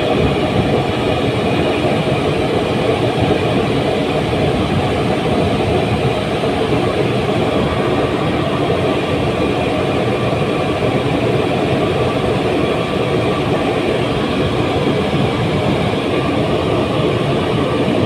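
Steady, loud industrial machinery noise from a packing plant in operation: a continuous mechanical rumble and hum that does not change.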